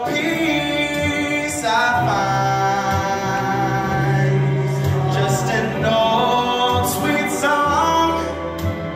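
A man singing a slow song solo into a handheld microphone, holding long notes and sliding between pitches.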